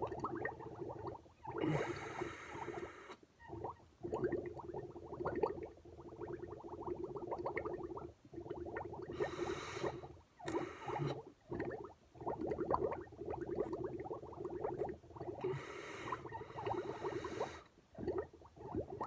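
Milk bubbling and gurgling steadily as air is blown through a drinking straw into a glass, broken several times by short breaths drawn through the nose.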